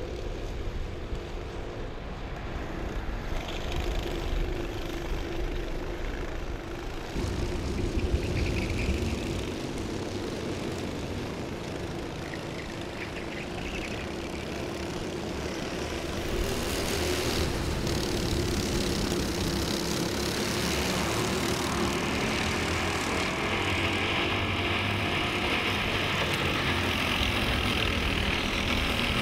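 Engines of several Honda cadet racing karts, small single-cylinder four-stroke motors, running hard as the karts race past, the drone shifting in pitch and growing louder about halfway through.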